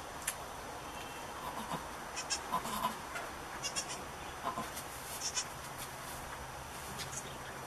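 Goats, a nanny with her newborn twin kids, giving a few short bleats, mostly in the first half, with light scattered clicks and rustles in between.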